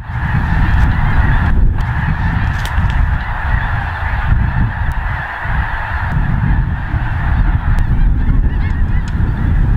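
A huge flock of snow geese calling all at once: countless overlapping high calls merging into one continuous din, with a steady low rumble underneath.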